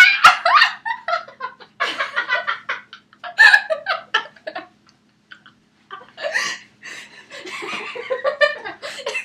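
People laughing and giggling in bursts, starting with a loud outburst.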